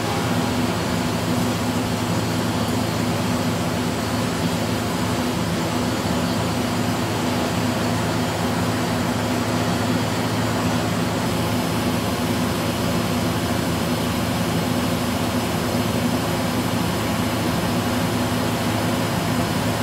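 Kitamura horizontal machining center running a CNC turning operation: a steady machine drone with several held low tones over an even hiss.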